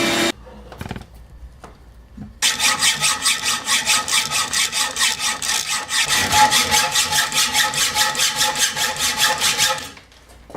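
Hand saw cutting with quick, even back-and-forth strokes. The sawing starts a couple of seconds in and stops shortly before the end, after a power tool cuts off at the very start.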